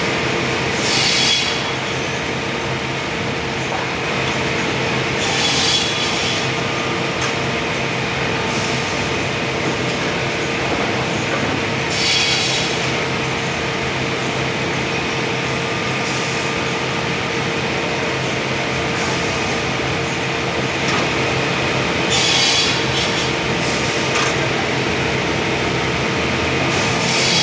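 Sawmill machinery running with a steady hum, broken every few seconds by a short high-pitched burst about a second long.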